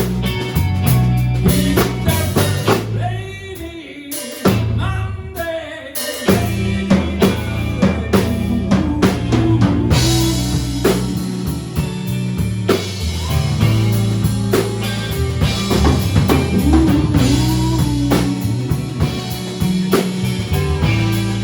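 Live blues band playing an instrumental passage: drum kit, bass and guitar over a steady beat. About three seconds in the band drops out for a few seconds, leaving a lead line that bends in pitch, then the full band comes back in.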